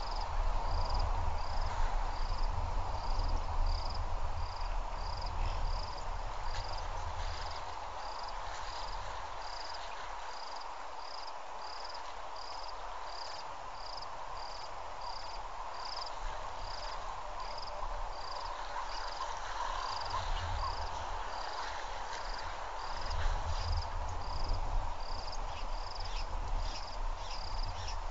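An insect chirping, with short high chirps repeating at an even rhythm of about one and a half a second, over a low steady rumble.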